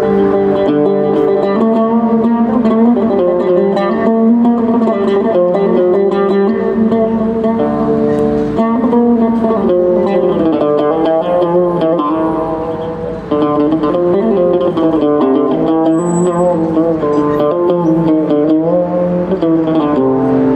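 Oud playing a melody with sliding notes; the sound dips briefly about two-thirds of the way through and comes back abruptly.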